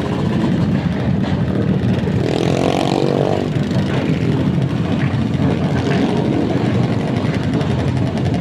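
Vehicle engine running loudly through its exhaust with a rough, rapid pulsing. About two seconds in, a brief rising whine sounds over it.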